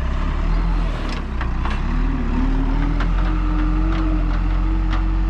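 Skid steer engine running, its pitch rising about two seconds in and then holding steady, with a few sharp clanks.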